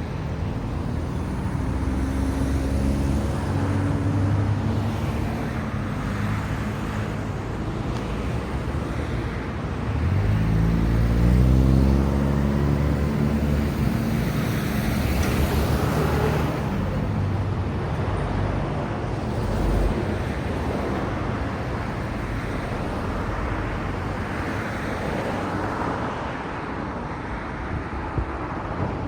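Road traffic at a signalled intersection: vehicle engines running, one pulling away with a rising engine note about ten seconds in, then the tyre rush of a car passing, over steady traffic noise.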